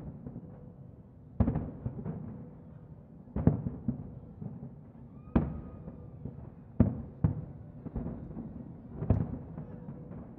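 Distant fireworks shells bursting over the harbour: about six sharp booms a second or two apart, each trailing off in an echo, over a continuous low rumble of further bursts.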